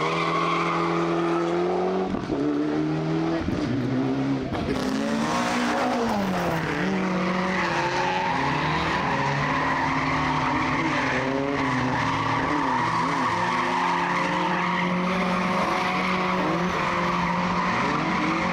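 Rally car engine revving hard, its pitch climbing and dropping again and again through gear changes and lifts, with tyres skidding on the stage.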